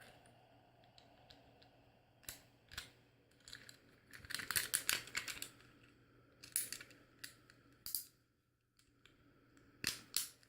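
Faint, irregular clicking and scratchy plastic rubbing from a fidget toy being worked by hand, with a dense flurry of clicks about four seconds in and scattered single clicks after.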